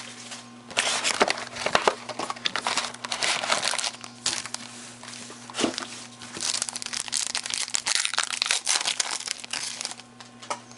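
Trading-card packaging crinkling and tearing as a box of football cards is opened and its foil packs are handled and ripped open, in several long rustling stretches.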